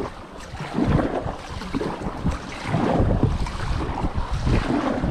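Wind buffeting the microphone over water noise from a moving frame-inflatable kayak.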